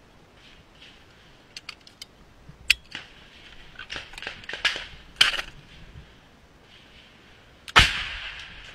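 Scattered clicks and short rustles of a soldier's gear and body-worn camera as he moves along a trench, then one loud, sharp bang near the end with a short fading echo.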